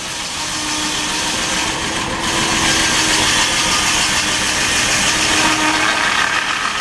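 Circular sawmill blade cutting through an oak log. A steady hum runs under the hiss of the cut, which grows louder about two seconds in.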